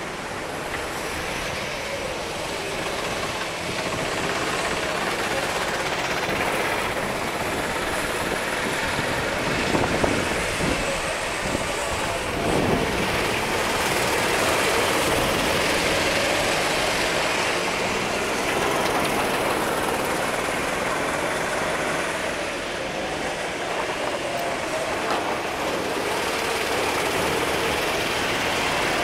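Several Sodi RT8 rental karts running on a wet track, their engines rising and falling as they pass, with tyres hissing on the wet asphalt.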